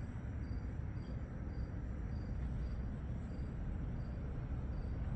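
Crickets chirping faintly, a short high chirp about twice a second, over a steady low rumble.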